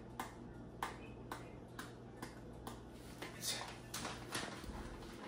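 Pepper grinder being twisted to grind black pepper, giving short clicks about twice a second over a steady low hum.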